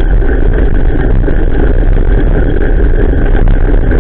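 Loud, steady rumble of wind buffeting and road vibration picked up by a bicycle-mounted action camera riding over a wet gravel road in the rain, with a light knock near the end.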